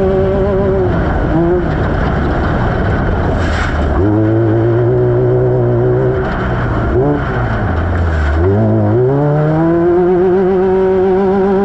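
Off-road race vehicle's engine under way at high revs, with rough, noisy running underneath. The pitch drops as the throttle lifts about a second in, picks up again around four seconds, dips twice near the middle, then climbs back and holds.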